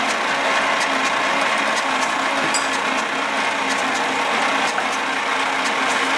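Ursus C-325 tractor's electric starter cranking its two-cylinder diesel engine steadily, with the engine not catching. The owner puts the hard start down to a battery too small for the tractor and to the engine not having been run all winter.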